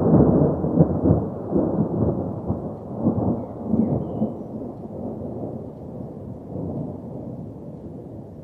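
Thunder: a loud peal breaks right at the start and rolls on in uneven surges for about four seconds, then dies down to a low, steady rumble.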